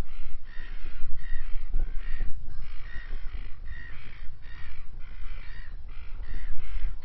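A crow cawing over and over, about one caw a second, over a low steady rumble.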